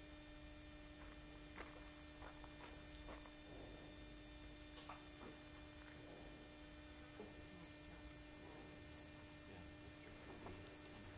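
Near silence: a faint steady electrical hum with a few faint scattered ticks.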